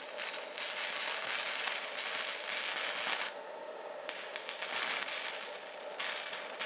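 Stick welding arc crackling and sizzling as the rod burns, from a FitInHot handheld stick welder held gun-style. About three seconds in the arc goes out for under a second, then restrikes and crackles on.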